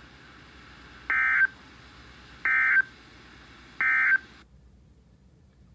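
Emergency Alert System digital data tones from a NOAA Weather Radio broadcast: three short, identical, warbling bursts about a second and a third apart, the end-of-message code that closes an alert. They play over a background hiss that cuts off abruptly about a second after the last burst.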